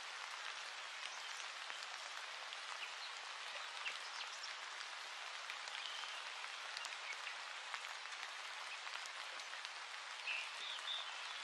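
Steady, even hiss of fine crackling noise, rain-like, with a few faint high chirps near the end.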